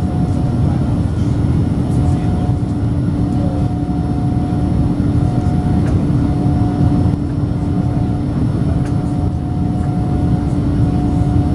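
Cabin noise of a Boeing 787-9 in its initial climb: the Rolls-Royce Trent 1000 turbofans running at climb thrust, heard through the cabin wall as a loud, steady rumble with a steady hum. A fainter, higher tone comes and goes on top of it.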